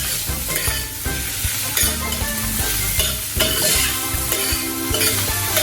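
Food sizzling in hot oil in a pan while it is stirred, with scraping and clicking of the utensil against the pan.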